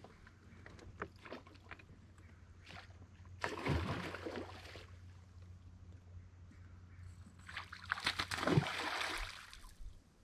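A hooked gar splashing at the surface near the bank while being reeled in: two noisy splashes, one about four seconds in and a longer one about eight seconds in, with small ticks in between.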